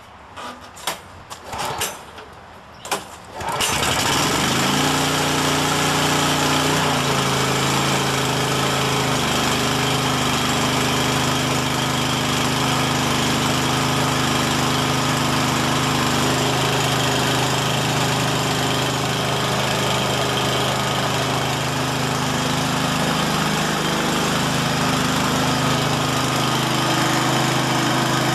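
Cold start of the Honda 11 hp single-cylinder engine on a Ransomes Bobcat 36-inch walk-behind mower: a few quick pulls of the recoil starter, then it catches about three and a half seconds in. It settles over the next few seconds and runs steadily.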